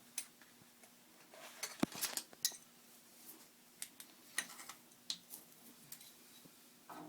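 Light metallic clinks and clicks of tools or metal parts being handled, a quick cluster about two seconds in and then single clicks spaced a second or so apart.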